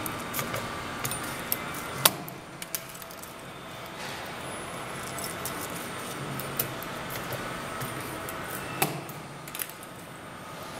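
CNC camless spring-forming machine with wire rotation running: a steady mechanical whir with metallic clicks and clacks as its tool slides bend wire into a hanger. The sharpest click comes about two seconds in, and another strong one near nine seconds.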